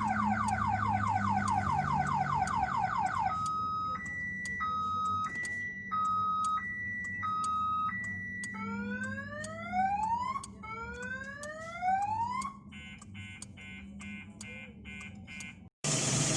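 Car alarm siren cycling through its patterns: a fast falling warble, then a two-tone hi-lo alternation, then rising whoops, then rapid pulsed beeps. It cuts off suddenly near the end, and a steady rumbling noise starts.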